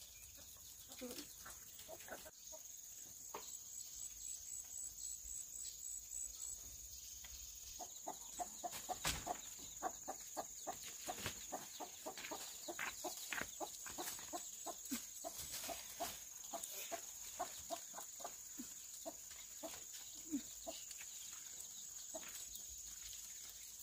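Chickens clucking: a run of short clucks, thickest through the middle of the stretch, over a steady high-pitched whine.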